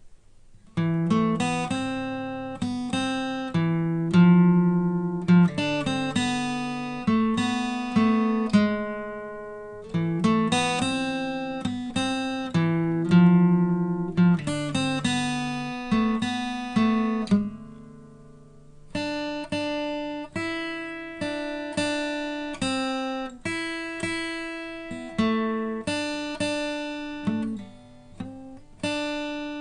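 Solo guitar playing a melody over bass notes and chords, the notes plucked one after another. The playing starts about a second in and eases off briefly past the middle before picking up again.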